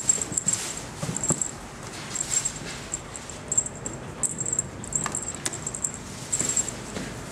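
A seal-point ragdoll kitten playing with a wand toy: on-and-off rustling and scuffling as it bats at the toy and its claws scrabble on the surface beside it, with a few sharp taps.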